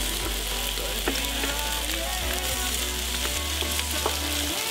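Beef patties sizzling on a hot electric grill plate, a steady hiss of frying meat.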